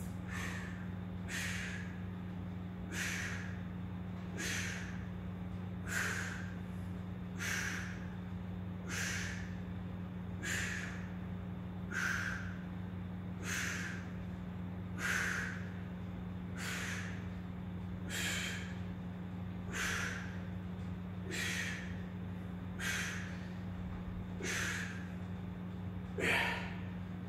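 A man breathing hard through a set of pull-ups: short, noisy breaths, one with each rep, about one every second and a half, the one near the end the loudest. A steady low hum runs underneath.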